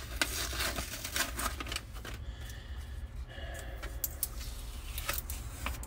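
Paper rustling with light clicks and taps as small items are handled on a wooden tabletop, busiest in the first two seconds and again near the end, over a low steady hum.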